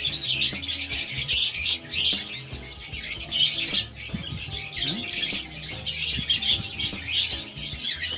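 Hand-fed parrot chicks chirping continuously in high, rapid calls while being fed, over background music.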